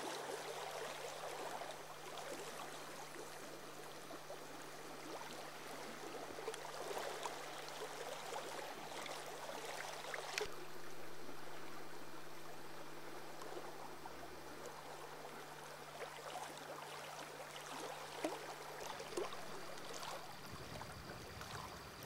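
River water gently lapping and trickling, a soft crackly wash of small splashes, under a faint steady hum. One sharp click about ten seconds in.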